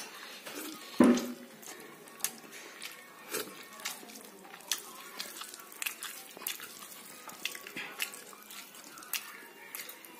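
Fingers mixing rice with dal on a steel plate: irregular wet squelches and small clicks against the metal. One much louder knock about a second in.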